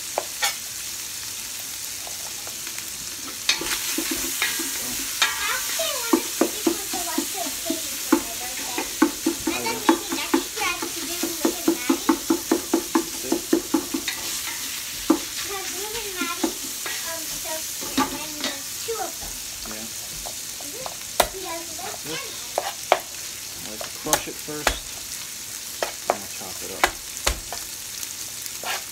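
Sausage meat sizzling as it fries in a pot, a steady hiss. In the middle a spatula stirs and scrapes through it in quick regular strokes, and sharp knife chops on a plastic cutting board come and go as garlic is chopped.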